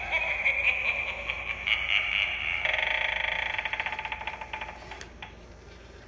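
Gemmy animated eyeball doorbell playing its spooky sound effect through its small built-in speaker while the motorized eyeball turns. The sound changes to a rapid rattling buzz about two and a half seconds in, then fades out near the five-second mark.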